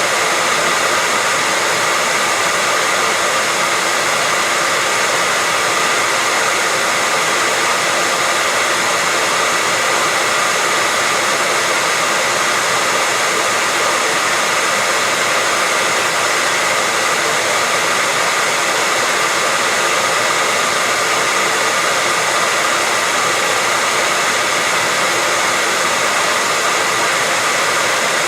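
Hair dryer running continuously at a steady speed, an even airy hiss with a faint whine from its motor and fan, unchanging throughout.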